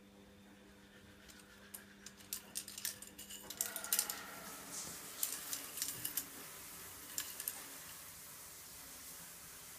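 A plastic pen skittering and clattering across a tiled floor as kittens bat it about, a run of light irregular clicks and taps that is busiest in the middle.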